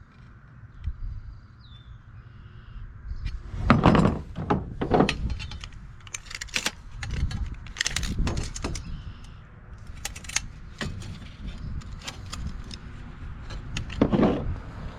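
Sheet metal and hand tools being handled: a run of clicks and clinks, with louder knocks about four, five, eight and fourteen seconds in.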